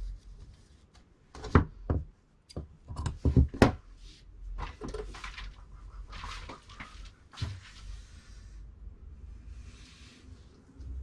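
Sharp clicks and knocks of metal tailor's shears being handled and set down on a cutting table, loudest a little over three seconds in, followed by a few seconds of cloth rustling.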